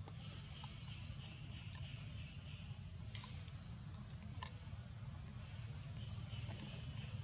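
Forest ambience: a steady high insect buzz over a low steady rumble, with a few faint clicks about three and four and a half seconds in.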